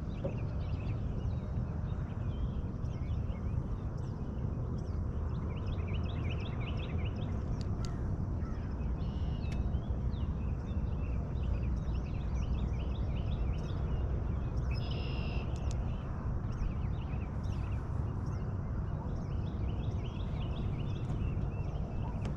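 Birds chirping and calling again and again over a steady low rumble.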